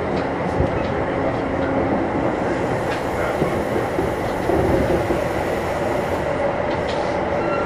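Kintetsu 1021 series electric train, a Hitachi GTO-inverter car, running at speed between stations, heard on board. A steady rumble of wheels on rail with a faint steady whine, and now and then a click from the rail joints.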